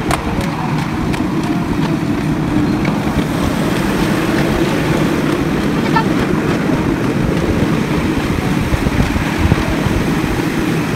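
Miniature park railway train running along its track, a steady rumble heard from one of its passenger cars.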